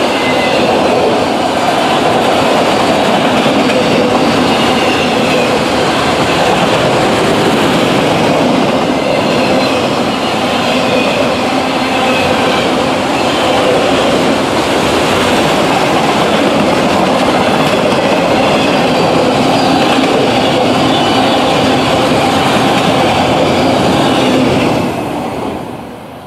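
Freight train of autorack cars rolling past close by: a steady, loud rumble and clatter of steel wheels on rail, dying away near the end as the last car passes.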